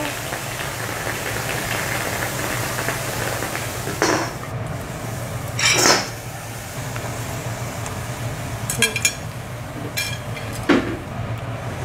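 Metal spatulas knocking and clinking on a teppanyaki griddle: a handful of sharp clanks, the loudest about six seconds in and a short run of ringing clinks near nine seconds. Food sizzles steadily on the hot iron plate underneath.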